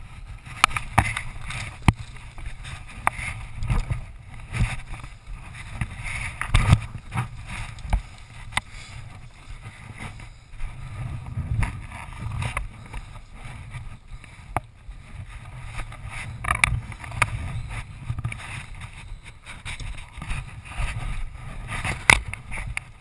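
Irregular knocks, scrapes and brush rustling up close, over a ragged low rumble, as a crashed dirt bike is handled in dry scrub.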